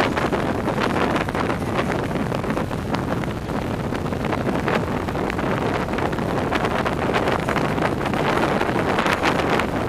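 Steady wind rush over the microphone of a camera riding on a track bike at speed, mixed with the hum of tyres rolling on the wooden velodrome boards.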